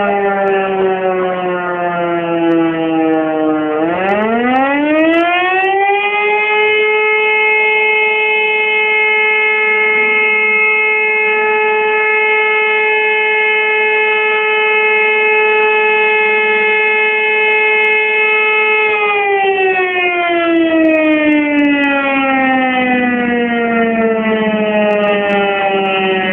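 Volunteer fire station alarm siren calling out the firefighters. It is dropping in pitch at the start, rises steeply about four seconds in, holds one steady wail for about twelve seconds, then slowly falls again near the end.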